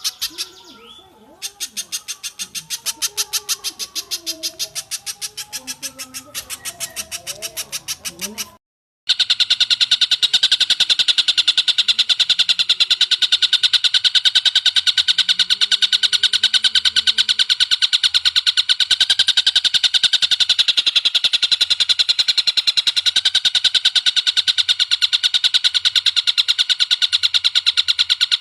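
Recorded bird calls: a fast, evenly repeated chattering series, broken by a brief silent cut about a third of the way in, then a denser, steady rapid trill that runs on without a break.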